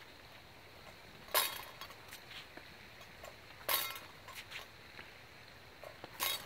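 Steel rapier blades striking each other three times, each a sharp metallic clink with a brief ring, as an upward cut from below meets the other blade.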